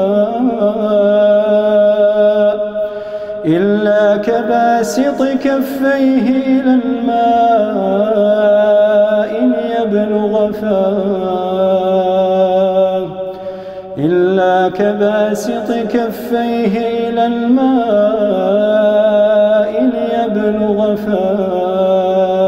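A man reciting the Quran in melodic tajweed style, with long drawn-out notes and ornamented turns of pitch. He sings several long phrases, with short pauses for breath between them.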